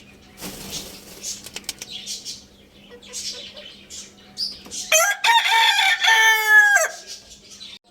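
A rooster crowing once, one long call of about two seconds starting near the end, loud and slightly falling in pitch at its close. Before it, scattered soft rustling and clicks.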